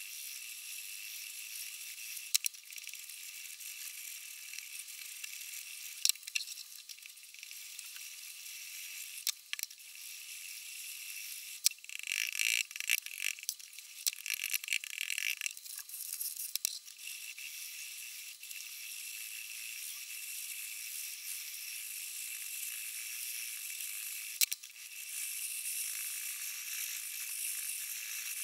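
Steel kitchen knife blade scraping on a 400-grit diamond sharpening stone: a steady gritty hiss with scattered clicks. It gets rougher and louder for a few seconds in the middle and again near the end.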